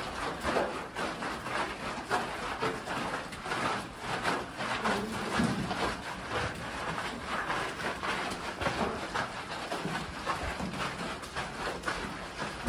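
Footsteps of several hikers walking on a dirt and gravel trail through a rock tunnel, a steady run of irregular crunching steps.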